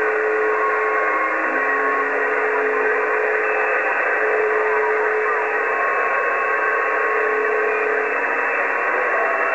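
Cobra 148 GTL CB radio receiving skip: a steady rush of static from its speaker, with several steady whistling tones of different pitches that come in and drop out.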